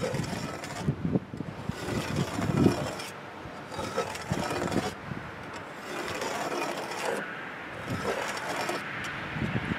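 Irregular knocks and scraping or rubbing against wood, busiest in the first few seconds, with a steady drone building near the end.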